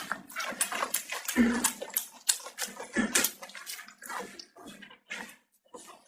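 Close-up mouth sounds of eating: wet chewing and lip smacking in a rapid, irregular run of clicks that grows sparser in the second half.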